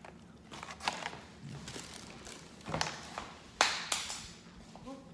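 Handling noises: a few sharp taps and clacks, the loudest about three and a half seconds in, as a clear plastic takeout container is set down and a person gets up from a sofa.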